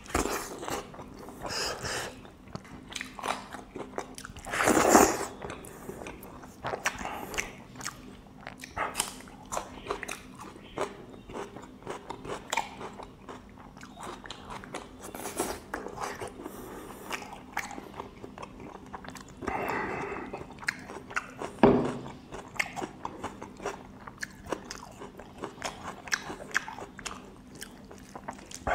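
Close-up chewing of mouthfuls of pork and rice eaten by hand, with many small wet mouth clicks and a few louder bites.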